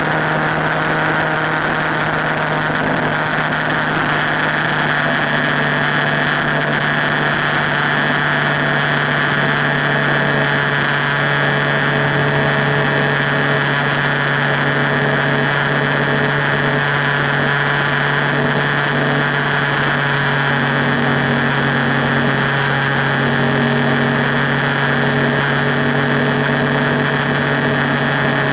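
Motorcycle engine running at a steady cruising speed, a constant drone that holds one pitch, with a steady hiss of wind and road noise.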